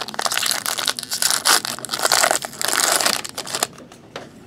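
Foil wrapper of a Bowman Chrome baseball card pack being torn open and crumpled by hand: a dense, crackling crinkle that stops about three and a half seconds in.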